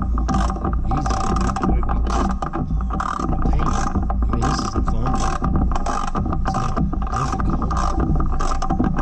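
Hand socket ratchet wrench backing out a transmission mounting bolt on a lawn tractor frame, the pawl clicking in quick strokes about twice a second, over a steady hum.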